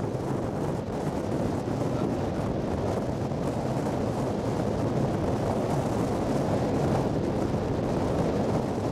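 Strong wind blowing across the microphone in a blizzard with snow driving sideways: a steady, dense rushing noise.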